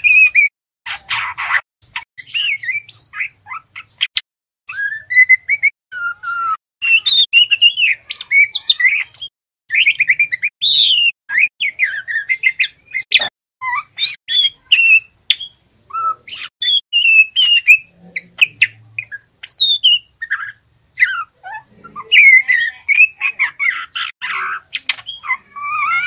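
Juvenile male white-rumped shama practising its song: rapid, jumbled runs of short chirps, twitters and warbled notes broken by brief pauses, the unformed practice song (ngeriwik) of a young bird.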